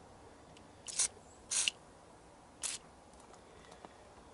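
Three short hisses of aerosol lubricant sprayed through an extension straw into a carburetor mouth, easing a tight-fitting carburetor-to-engine rubber onto it.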